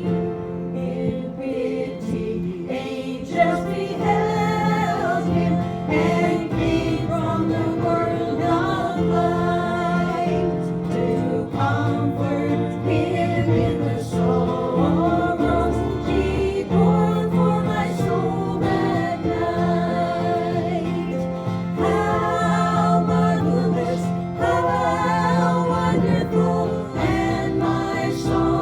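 Gospel hymn sung by a group of voices in phrases, over steady sustained accompaniment.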